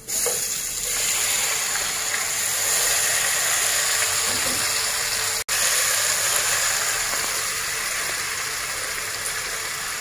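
Marinated prawns sizzling hard in hot oil, the hiss starting suddenly as they go into the pan and holding steady while they are stirred with a wooden spatula. The sound cuts out for an instant about halfway.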